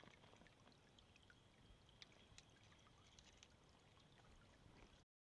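Faint trickle of a shallow creek over gravel, with a few small ticks scattered through it; it cuts off suddenly near the end.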